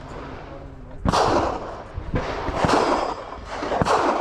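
Gunshots: four loud shots, the first about a second in and the rest spaced unevenly over the next three seconds, each trailing into a short echo.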